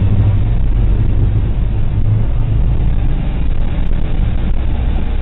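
Steady low rumble of a moving vehicle's engine and road noise, heard from inside its cab.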